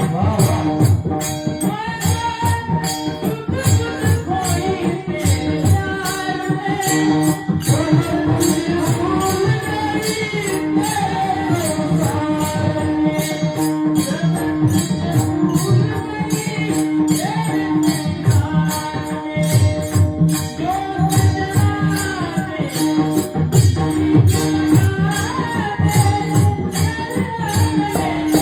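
Male voice singing a Marathi Varkari devotional song over a steady held drone, with fast, regular hand-cymbal strikes and drumming keeping the beat.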